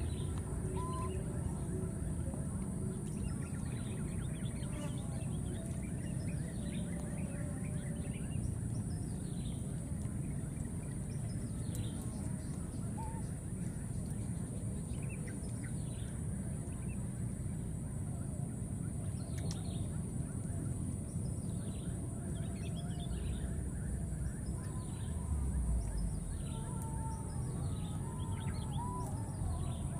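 Outdoor natural ambience: many short, falling high chirps, roughly one a second, over a steady high-pitched drone and a low rumble.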